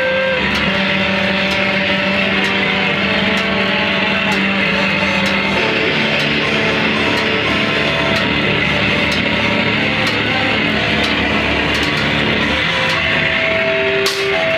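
Live band music: heavily distorted electric guitar holding long sustained notes that change every few seconds over a dense wash of noise.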